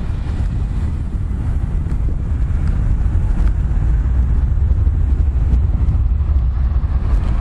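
Wind buffeting the microphone of a camera carried on a moving bicycle: a steady, loud low rumble.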